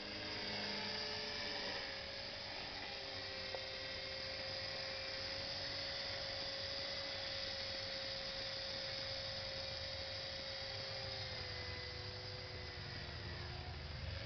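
Align T-Rex 450 SE electric RC helicopter in flight, its motor and rotor giving a steady hum that dips slightly in pitch near the end.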